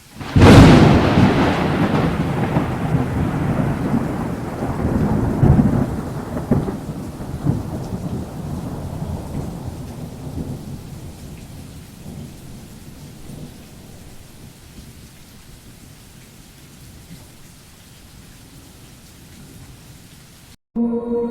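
Thunderclap sound effect: a sudden loud crack about half a second in that rolls into rumbles, then fades slowly over the next fifteen seconds under a steady hiss of rain.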